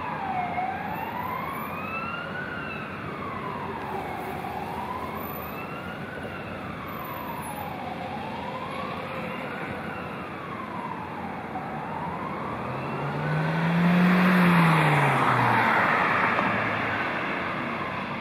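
Police siren wailing, with a slow rise and fall about every three seconds, fading away after about twelve seconds over city traffic noise. About two thirds of the way in, a vehicle passes close and its engine is the loudest sound, rising and then falling in pitch.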